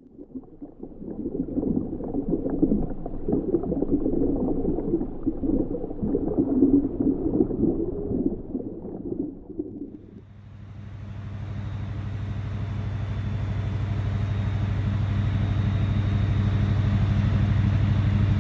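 Uneven, gurgling underwater churning for about ten seconds. It gives way abruptly to a boat's engine running with a steady low hum that grows gradually louder.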